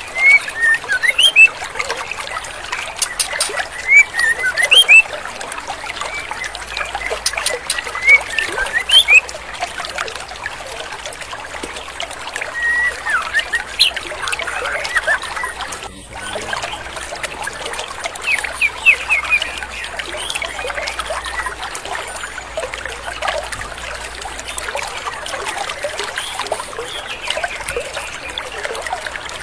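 Female white-rumped shama giving short, rising chirps, in quick clusters that thin out after the first ten seconds, over the steady rush of a flowing stream.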